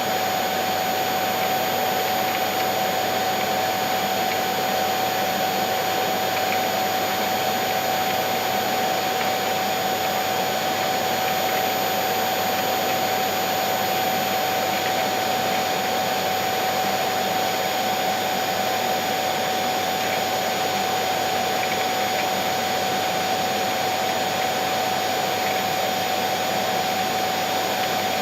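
Vacuum cleaner motor running steadily, a constant rushing hiss with a high steady whine.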